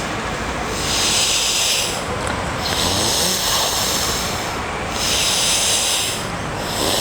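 A person breathing deeply and forcefully through the nose, demonstrating the deep-breathing exercise. It comes as a series of long, noisy breaths of one to two seconds each, about four of them, with short pauses between.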